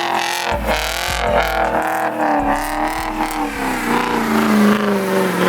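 Car engine revving hard, its pitch wavering up and down, then falling steadily as the revs drop in the last couple of seconds.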